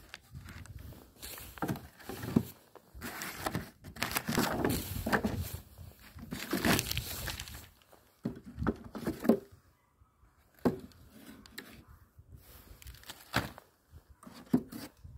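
Handling noise of a Miniplus beehive being opened: a wooden cover board lifted off and wooden frames pried loose and scraped against the hive body. The noise comes as irregular rustles, scrapes and sharp knocks.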